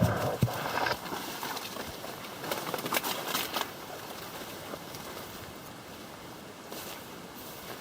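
Branches and leaves brushing and rustling against clothing as someone pushes through dense bush on foot, with a few sharp snaps. There are bursts in the first second and again around three seconds in, then only a faint steady background.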